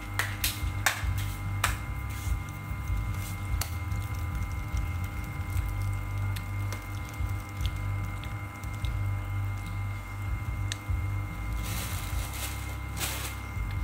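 Clear plastic bag of fried shallots crinkling in handling, with sharp crackles clustered near the start and again near the end, over a steady low machine hum.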